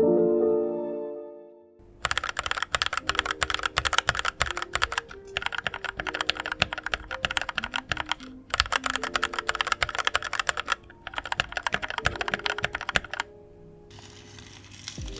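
Royal Kludge RK84 mechanical keyboard with RK red linear switches being typed on in fast runs of keystrokes: four bursts with short pauses between them, over soft background music. The typing stops near the end.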